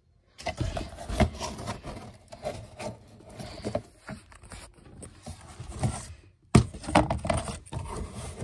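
Cardboard shipping box being handled: torn flaps scraping and crumpled kraft packing paper rustling, with irregular small knocks and rubs. A brief pause just after six seconds, then a sharp knock, the loudest sound, and more rustling.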